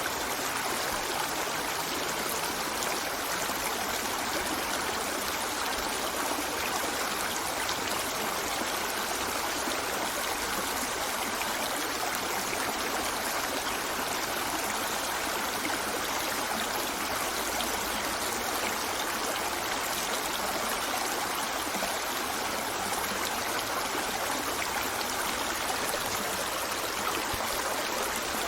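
River water flowing steadily over rocks, an even rushing and burbling.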